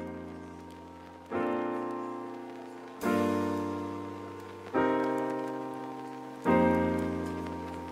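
Background music: slow piano chords, a new one struck about every second and three-quarters and each left to ring and fade.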